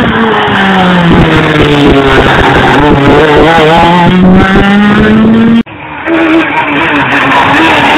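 Rally car engine run hard on a special stage: the engine note dips, then climbs steadily as the car comes on. About two thirds of the way through the sound cuts out for an instant, then more hard-revving engine follows with a wavering note.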